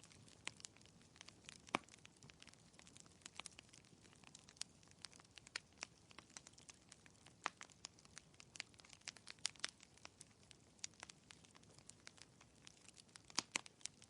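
Faint wood fire crackling in a fireplace: irregular sharp pops and snaps, several a second, over a soft hiss.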